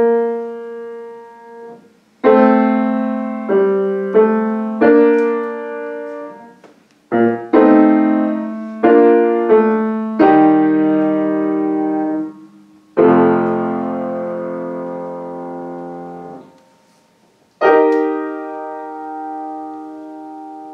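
Solo grand piano played by a child: separate notes and chords struck one after another, each ringing and fading. About two thirds of the way in, a low chord is held and then damped off short. After a brief gap, a final chord is struck and left to ring.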